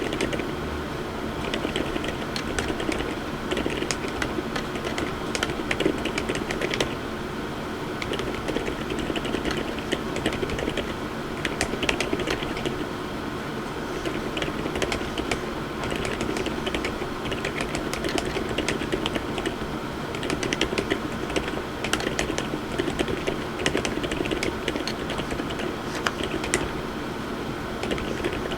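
Continuous fast typing on a MonsGeek M1W mechanical keyboard with Outemu Lime switches and Kuromi keycaps: a dense run of keystroke clicks. The low-noise, low-force switches give soft, muted clacks.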